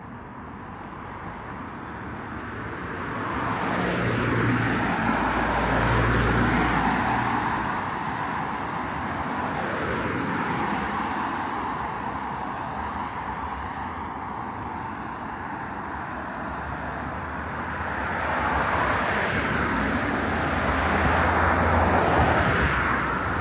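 Road traffic passing close by: a steady rush of vehicle noise that swells as vehicles go past, loudest about four to seven seconds in and again near the end.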